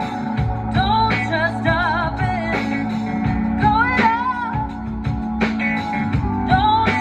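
Live band playing a slow soul-pop song: a singer's voice carries a wavering melody over keyboards, a bass guitar and a steady drum beat.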